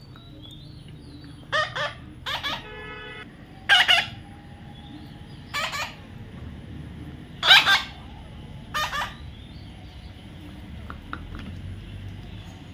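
A parrot screeching: six short, harsh calls spread through the first nine seconds, the loudest about three-quarters of the way through, with a briefer, clearer pitched note between the second and third.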